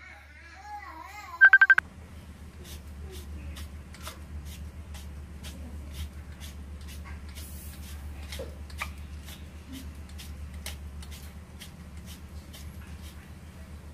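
A wooden pepper mill grinding black pepper, twisted over and over: a long run of short crunching clicks, about two or three a second, over a low steady hum. In the first couple of seconds a voice and a quick burst of electronic beeps are heard instead.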